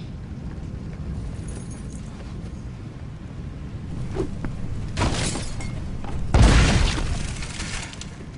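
A large bonfire burning with a low rumble, then flaring up twice with a deep boom, about five and six and a half seconds in, the second the louder: the fire taking as rum is fed to it.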